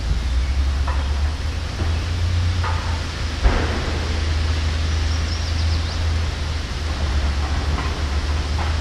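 Steady outdoor hiss with a low rumble, typical of wind buffeting the microphone, with a short knock about three and a half seconds in.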